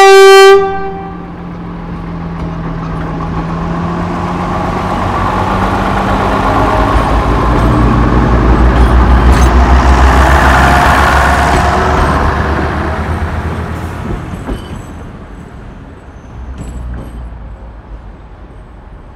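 A short, loud horn blast, then a heavy vehicle approaches and passes with a deep rumble. The rumble builds to a peak about halfway through, drops in pitch as it goes by, and fades away.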